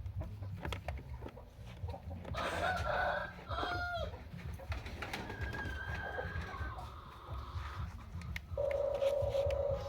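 Poultry calling: short gliding calls about a third of the way in, then one long held call near the end, over a low continuous rumble.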